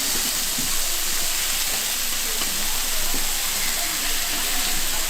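Beef skirt steak sizzling steadily as it fries, an even hiss with no break, and faint voices in the background.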